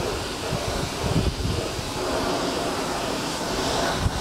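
Gravity-feed paint spray gun hissing steadily as compressed air sprays a coat of paint, with a brief break near the end.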